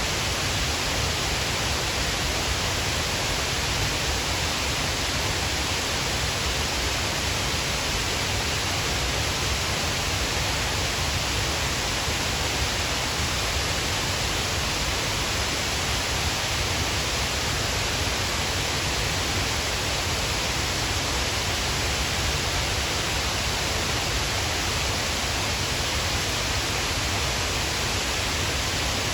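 Shiraito Falls, many thin streams of water falling over a broad cliff face, making a steady, unbroken rush.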